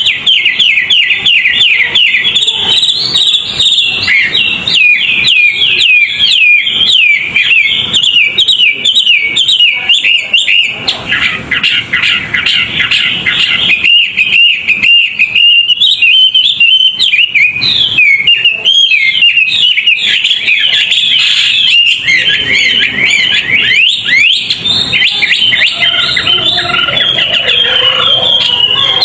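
A songbird sings a rapid, continuous chattering song of quick high chirps and trills, from a 'masteran' tutor recording of a contest-champion bird used to train caged birds. The song cuts off suddenly at the end.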